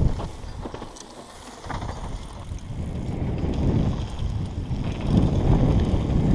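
Wind buffeting the camera's microphone as a mountain bike rolls down a dirt singletrack, with tyre rumble and rattle from the bike. The noise eases about a second in and builds again, louder after about five seconds.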